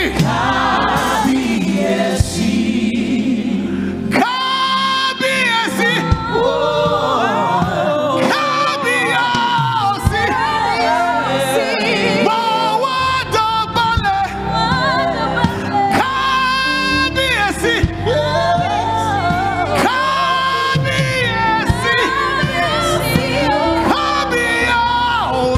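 Live gospel worship music: a male lead singer sings sliding, ornamented vocal lines over backing singers and a band.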